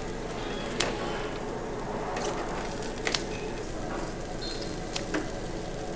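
Eel sizzling steadily on a wire-mesh grill over charcoal, with a few sharp clicks of metal tongs and kitchen scissors cutting the grilled eel into pieces.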